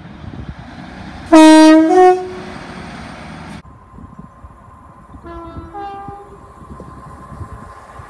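Class 150 Sprinter diesel unit sounding its two-tone horn loudly: a longer low note, then a short higher one. After a cut, an approaching CrossCountry Voyager gives a fainter two-tone horn, low then high.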